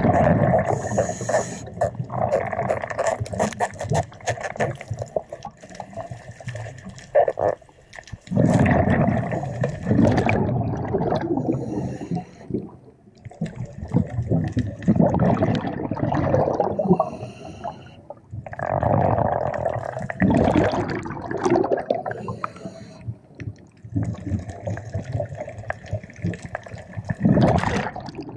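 Scuba diver breathing underwater through a regulator: a short hiss on each inhale, then a loud rush of exhaust bubbles on each exhale, repeating about every five to six seconds.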